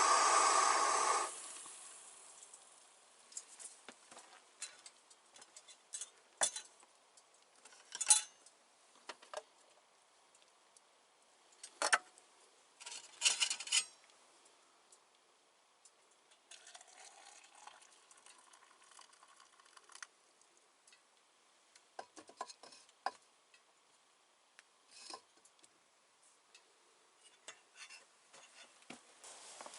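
A steady hiss that cuts off about a second in, then scattered light clinks and taps of metal cookware and utensils being handled, the loudest about 8, 12 and 13 seconds in.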